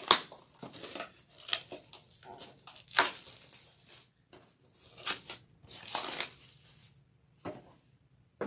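Clear plastic shrink-wrap being torn and pulled off a cardboard card box, crinkling and crackling in repeated bursts that stop about seven seconds in.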